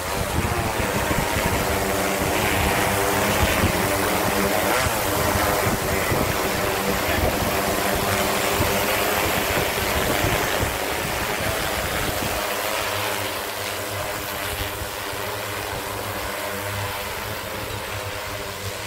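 DJI Agras MG-1S agricultural spraying drone's rotors humming steadily in flight, the hum wavering slightly in pitch and growing somewhat quieter about twelve seconds in.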